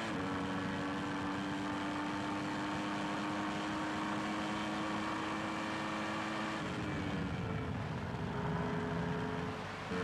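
Footwork's Mugen-Honda V10 Formula One engine heard from the onboard camera, held at high revs flat out. After about seven seconds the pitch drops in a few steps as the car shifts down, then climbs again.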